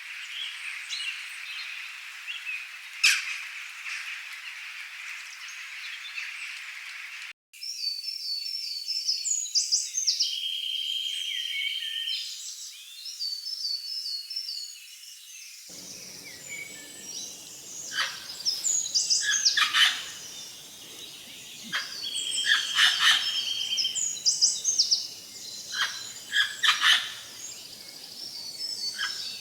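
Wild birds chirping and singing, many short repeated calls and trills overlapping. It opens with a few seconds of a steady high hiss and a single sharp click about three seconds in, then cuts abruptly to the birdsong.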